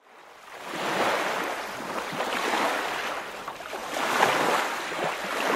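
A rushing noise that fades in from silence at the start and swells twice, about a second in and about four seconds in.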